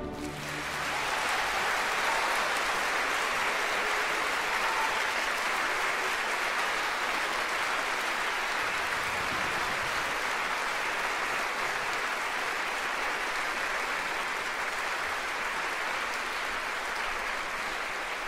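Large theatre audience applauding steadily without a break, easing slightly toward the end.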